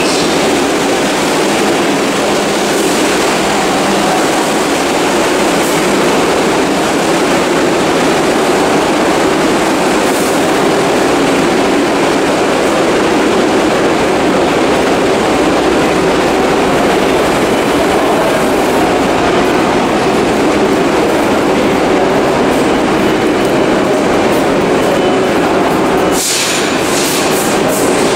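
New York City subway shuttle car running, heard from inside: a loud, steady rumble of wheels on rails. Near the end it briefly dips and turns hissy.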